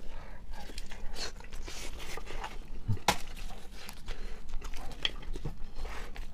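Close-miked eating of roasted sheep's head: chewing and lip smacking, a run of irregular wet clicks with one sharper click about three seconds in.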